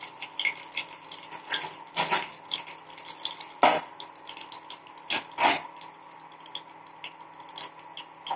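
Cinnamon stick and green chilli frying in hot oil in a kadai, spluttering with irregular sharp pops and crackles, a few of them much louder, over a faint steady hum.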